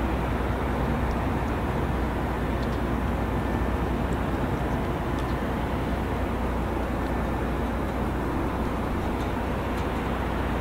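Steady outdoor background noise: a constant low rumble under an even hiss, with a few faint ticks.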